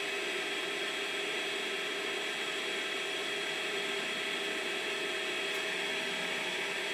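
Creality Space Pi filament dryer's fans running during a drying cycle: a steady whir with several thin, steady whining tones over it.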